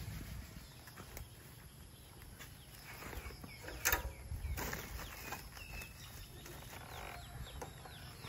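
Faint birds chirping: a run of short, falling calls starting about three seconds in, with a sharp click just before the four-second mark, over a low rumble.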